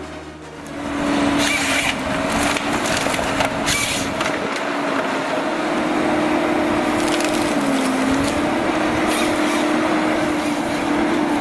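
Ponsse Scorpion forestry harvester at work on timber: its engine and hydraulics run with a steady hum that shifts in pitch a few times, over wood cracking and splintering. The sound comes in about a second in.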